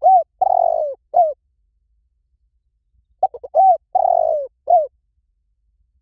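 Spotted dove cooing: two calls about three and a half seconds apart, each made of a few short notes, one long coo and a short closing note.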